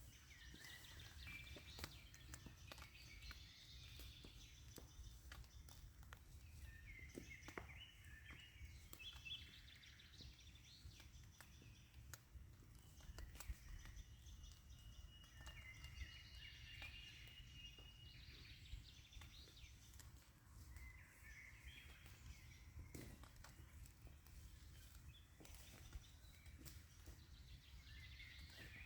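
Quiet forest ambience: faint, scattered bird calls and small irregular clicks over a low steady rumble.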